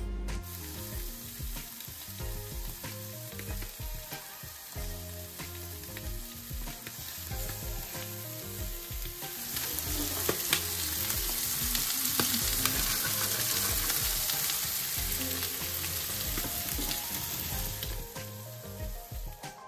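Fish frying in butter in a hot non-stick pan: a steady sizzle that grows louder about halfway through.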